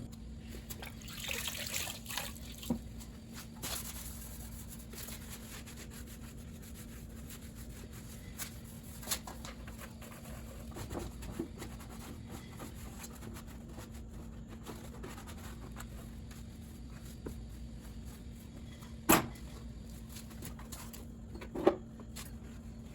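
Water running and splashing in a steady stream, with scattered small clicks and two sharp knocks near the end.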